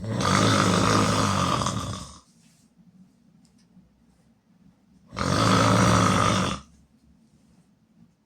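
A person snoring loudly: two long snores, the first about two seconds and the second about a second and a half, some five seconds apart, with only faint breathing between them.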